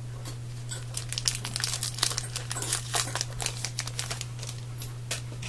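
Crinkling and tearing of a trading card pack's wrapper as it is ripped open, in a run of irregular crackles that is busiest in the middle, over a steady low hum.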